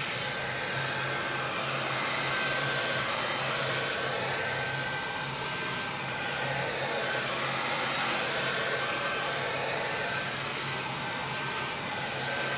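Handheld hair dryer blowing steadily, drying a thick coat of latex paint: an even rush of air over a steady low motor hum.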